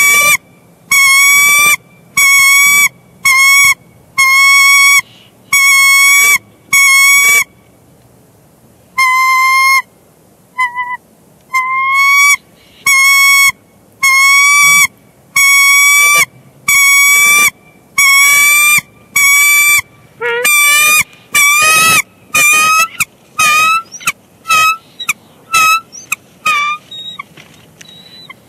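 Nesting pair of bald eagles calling: a long series of loud, piercing notes at about one a second, with a short break about a third of the way in, quickening into shorter, faster notes in the last third. These are the calls the pair trades at an incubation shift change.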